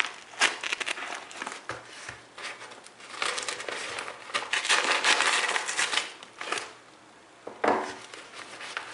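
Packaging crinkling and rustling in irregular bursts as a mailed package is opened by hand, busiest in the middle and pausing briefly near the end before one more rustle.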